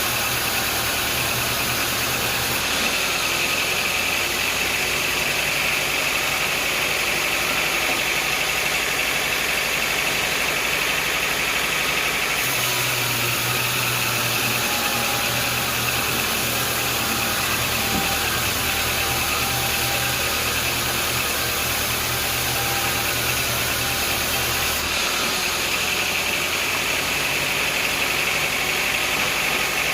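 Sawmill machinery running steadily, a continuous engine-like drone with a high whine on top; the low hum shifts a few times, about 3, 12 and 25 seconds in.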